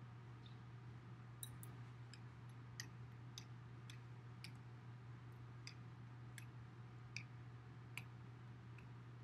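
Near silence: a steady low room hum with scattered faint light clicks and ticks, roughly one or two a second, starting about a second and a half in.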